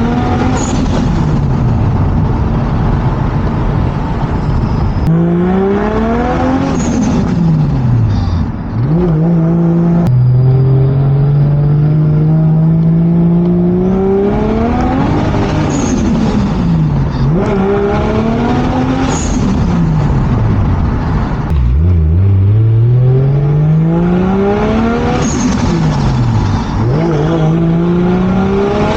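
Turbocharged Toyota Mark II's engine driving on a manual gearbox, its revs rising and falling again and again in pulls of one to two seconds. Near the middle there is a steadier stretch where the revs climb slowly, and a short hiss comes near the top of several pulls.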